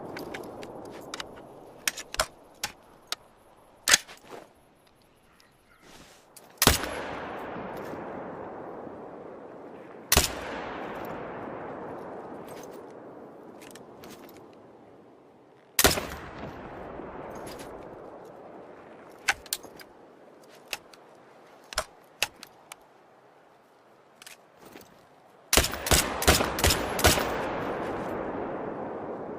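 AR-15 rifle gunfire: three single loud shots, each followed by a long echoing decay lasting several seconds, then a quick burst of several shots near the end. Smaller sharp cracks are scattered between the main shots.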